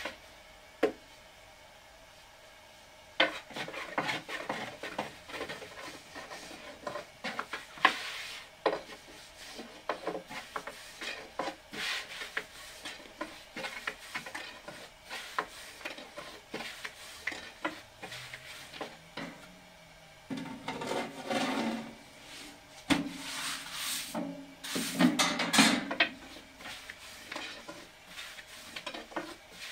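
Irregular rubbing and scraping of household items being handled and scrubbed by hand, with sharp knocks and clatter. It starts about three seconds in and grows busier and louder for a few seconds near the end.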